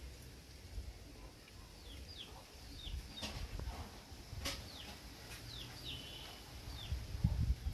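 Birds peeping: short, high, falling chirps that repeat about every half second, with two sharp clicks in the middle.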